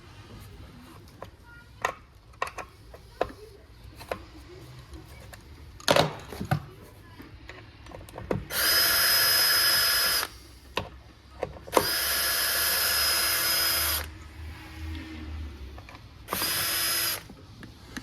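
Cordless drill-driver spinning in three bursts, two of about two seconds and a last, shorter one, with a steady high whine, as it backs out the bolts of an electric unicycle's casing. Before the first burst come scattered clicks and knocks of parts and screws being handled.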